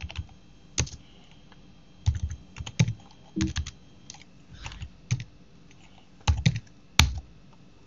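Typing on a computer keyboard: irregular keystrokes in short clusters with pauses between them, one sharper, louder key click about seven seconds in.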